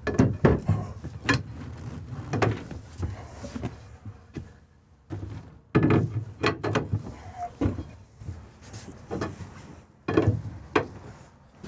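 Aluminium rails being set down into their brackets across a camper's dinette footwell to form a bed base, knocking and clattering in several bunches through the stretch.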